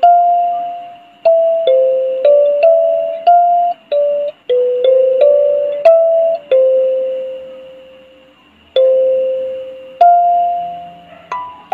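A 17-tine Senda electroacoustic kalimba plucked with the thumbs: a slow melody of single notes, each ringing and fading away. About two-thirds through, one note is left to ring out before the tune picks up again.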